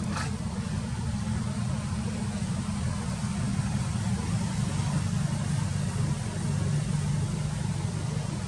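Steady low rumble of vehicle engines and road traffic, with an even hiss above it. A brief click sounds right at the start.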